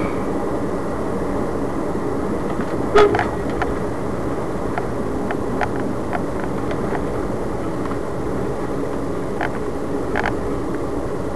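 Steady noise of a moving car heard from inside the cabin through a dash cam's microphone, tyres and engine running together. A few short clicks or knocks cut through it, the loudest about three seconds in and a pair near the end.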